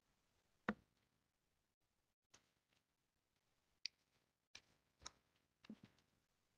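Near silence, broken by a handful of faint, sharp clicks and knocks, the loudest about a second in.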